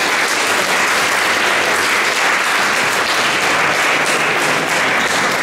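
An audience applauding steadily, a dense patter of many hands clapping. It welcomes the next speaker to the floor.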